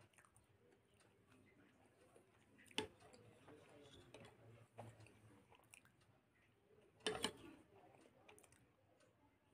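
Quiet eating sounds: soft chewing and a few sharp clicks of a metal spoon in a small bowl of dudh puli, rice dumplings in milk. The loudest clicks come about three seconds in and again about seven seconds in.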